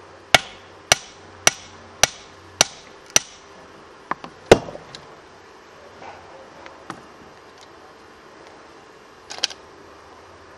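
Hand sledge hammer striking steel splitting wedges (plugs and feathers) set in a stone block: six sharp metallic strikes, each ringing briefly, about two a second. About four seconds in come two lighter knocks and then the loudest, duller strike, followed by a few faint scattered clicks and a short double knock near the end.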